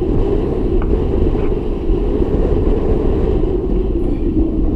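Steady low rumble of wind buffeting the microphone aboard a small open fishing boat at sea.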